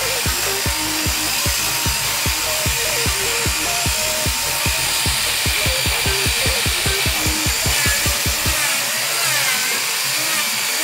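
Music with a steady beat, over the steady running of a handheld electric belt sander working across a suar wood slab. The music's bass drops out near the end.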